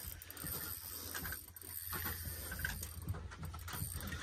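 Spinning reel being cranked under load with a fish on the line, its gears and drag clicking rapidly and unevenly, over a steady low rumble.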